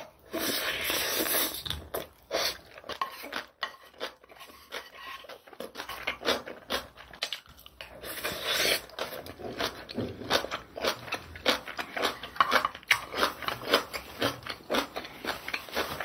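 Close-miked eating: a long slurp of sauce-mixed food drawn in off chopsticks just after the start and a shorter one about halfway through, with wet chewing and lip smacks in many quick clicks between them.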